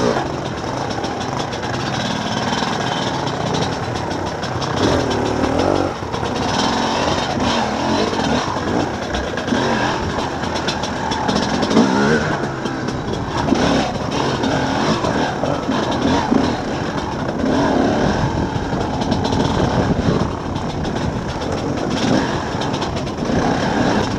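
Enduro dirt bike engine riding a rough rocky trail, its revs rising and falling as the throttle is worked, with knocks and rattles from the bumps.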